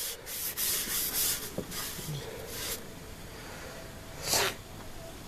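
A disinfectant wipe scrubbed over the wood inside a PC case in a run of quick rubbing strokes, wiping out sawdust; a short louder rush of noise comes a little after four seconds in.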